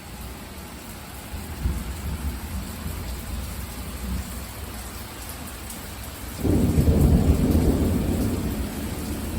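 Thunder from a close thunderstorm: a low rumble starts about a second and a half in, then a much louder clap comes about six seconds in and rolls on, slowly fading.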